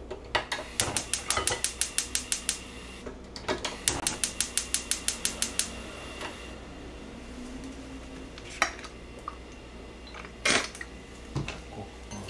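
Gas hob's push-and-turn igniter clicking fast, about six clicks a second, in two runs of about two seconds each as the burner knob is turned to light the flame. A few separate knocks follow as the frying pan is moved on the hob.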